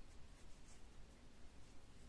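Faint, irregular rustling and scratching of cotton-blend yarn pulled through stitches with a metal crochet hook, over a low steady hum.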